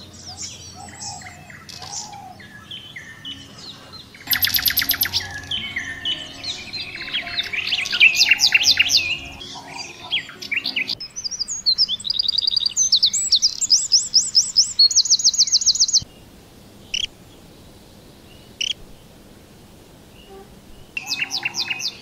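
Songbirds chirping and singing: varied short chirps, then from about four seconds in a loud, dense song full of rapid high trills. The song cuts off abruptly about sixteen seconds in, leaving a few isolated chirps.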